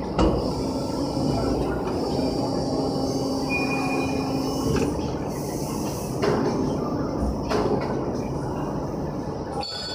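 Jigsaw puzzle hydraulic die-cutting press running: a steady mechanical hum with a low drone during the first few seconds as the table slides out, and several sharp clunks.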